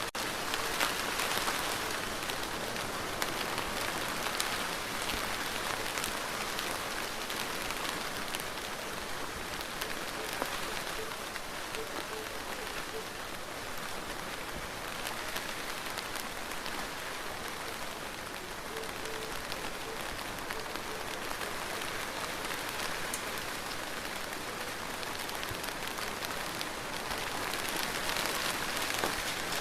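Steady rain falling: a dense, even hiss flecked with countless small drop ticks, a little heavier near the start and again near the end.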